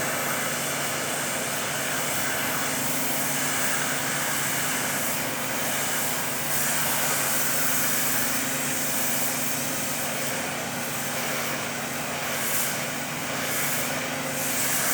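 Steady mechanical running noise: a constant low hum under a broad hiss, without a break.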